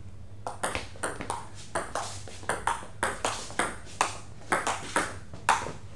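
Table tennis rally: the ball clicking sharply off bats and table in a quick, even rhythm of about four hits a second, starting about half a second in.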